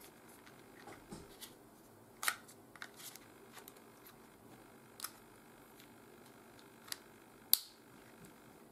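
Scattered sharp clicks and taps of hard plastic as a Lamax X7.1 Naos action camera is handled and a battery is fitted into its slot. There are about nine clicks at uneven intervals, the sharpest about seven and a half seconds in and another strong one about two seconds in.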